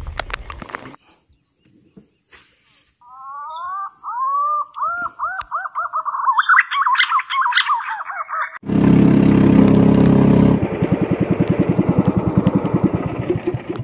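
A bird calling in a run of rising chirps that speed up and climb in pitch, then a small engine starts suddenly and runs loudly, settling into a fast pulsing beat.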